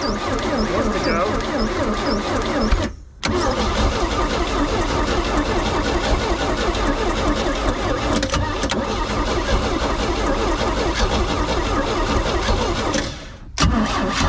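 OMC 3.0-litre four-cylinder marine engine being cranked by its starter on a shot of starting fluid, firing and sputtering rather than settling into a steady run. Water in the carburetor bowl keeps it from running on its own fuel. The cranking breaks off briefly about three seconds in and again near the end.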